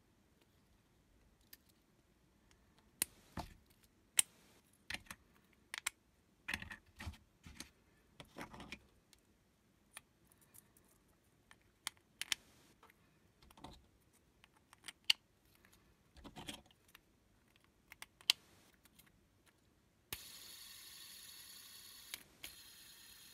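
3D-printed plastic hex tiles clicking and snapping as they are pulled off and pressed onto the arms of a fidget-spinner hub: an irregular run of sharp clicks and knocks. Near the end the spinner is set spinning and its bearing gives a steady whir.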